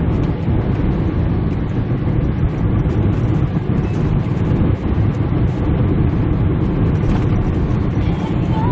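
Steady low drone of a Kia Bongo 3 truck heard from inside the cab while driving: engine and tyre noise, with the engine pulling on a slight uphill grade.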